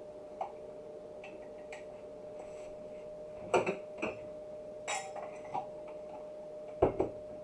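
Light, scattered clicks and clinks of a small glass jar and plastic spoons being handled and set down on a cutting board, the sharpest about three and a half seconds in, over a faint steady hum.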